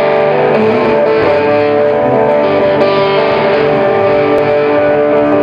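A live rock band playing, with electric guitar to the fore over electric bass, in held, ringing notes.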